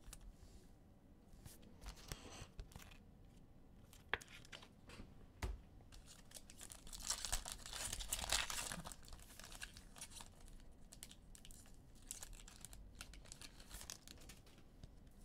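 A trading-card pack wrapper being torn open and crinkled by hand, with a denser, louder stretch of crinkling about seven to nine seconds in and a few sharp clicks earlier.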